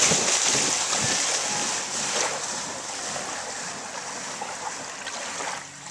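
Yellow Labrador retriever splashing through shallow water, loudest at the start and dying down over the next few seconds.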